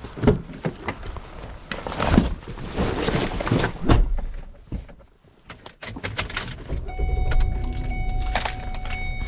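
Knocks, clicks and rattles of gear being handled, then a steady tone of several pitches held together over a low rumble, starting about seven seconds in.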